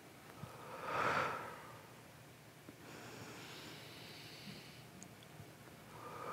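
A woman breathing slowly and deeply during a calming hand-breathing exercise: a loud breath about a second in, a longer, softer breath from about three to five seconds, and another loud breath near the end.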